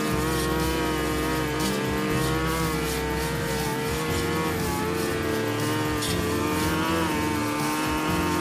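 Backpack-mounted 42cc two-stroke brush cutter running at high speed while its blade cuts thick grass. The engine note wavers slightly up and down under load.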